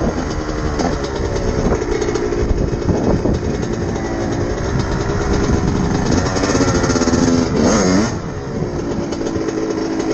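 2000 Yamaha YZ125's two-stroke single-cylinder engine being ridden hard on a trail, its pitch rising and falling with the throttle, with a quick drop and pick-up near the end as the rider backs off and gets back on the gas. The rider considers this engine jetted perfectly, so it runs clean through the revs.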